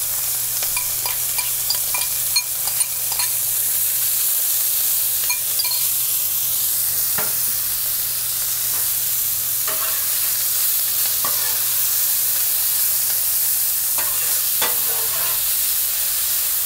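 Diced onions and garlic sizzling in hot olive oil on a flat-top griddle: a steady frying hiss with scattered small pops. Near the end, a metal spatula scrapes across the griddle as the onions are pushed around.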